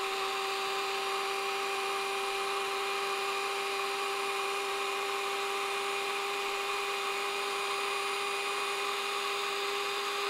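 Small stainless-steel electric herb grinder running at a steady pitch, its blades milling dried nettle leaves toward a powder.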